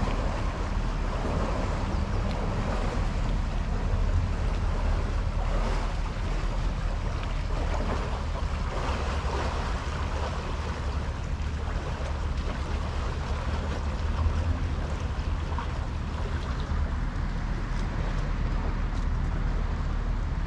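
Canal lock water rushing steadily, over a constant low rumble and wind buffeting on the microphone.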